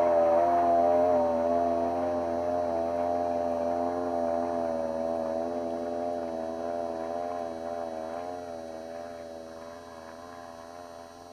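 Turbocharged Yamaha Phazer FX snowmobile engine running steadily with a slightly wavering pitch, growing fainter throughout as the sled climbs away.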